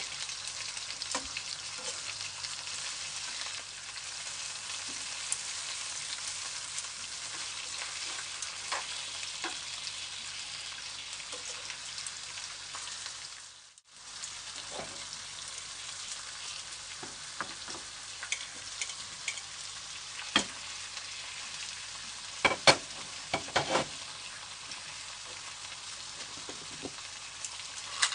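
Oil sizzling steadily in a frying pan under a whole fish with sliced onion and garlic. The sizzle breaks off briefly about halfway, then carries on with a few sharp taps and knocks against the pan, the loudest a few seconds before the end.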